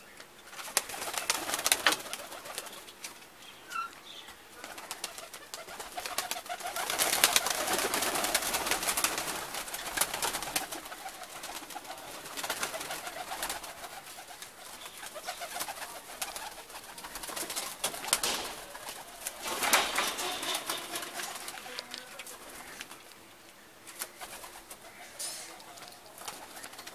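A flock of domestic pigeons in a loft cooing and moving about, with repeated bursts of rustling, flapping noise, the loudest about 7 to 10 seconds in and again near 20 seconds.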